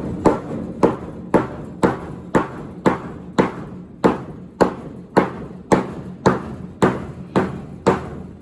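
Hammer blows on a wooden 2x4, struck about twice a second in a steady rhythm, driving the board sideways into place between the floor boards of a livestock trailer.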